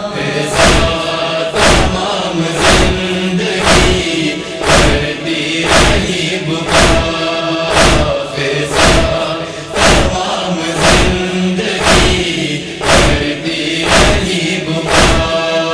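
Noha interlude: a chorus of men's voices holding a wordless chant over heavy, even thumps about once a second, the beat of matam (chest-beating mourning).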